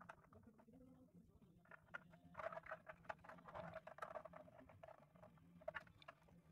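Faint clicks, taps and scraping of light 3D-printed plastic model parts being handled and fitted together, busiest in the middle.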